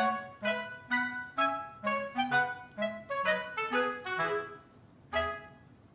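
Background music: a light, bouncy melody of short notes on a woodwind-like instrument, ending with a single last note about five seconds in.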